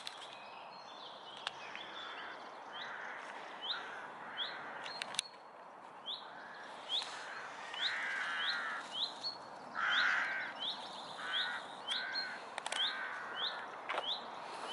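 Outdoor birdsong: one bird repeats a short, high, falling note over and over, about one to two a second. Louder, harsher calls break in twice, about eight and ten seconds in.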